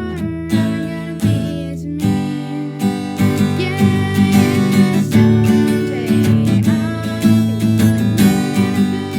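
Instrumental music led by strummed acoustic guitar.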